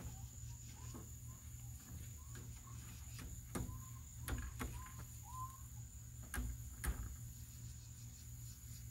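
Backyard hens making a few faint, short soft calls, with a handful of light knocks, over a steady thin high-pitched background tone.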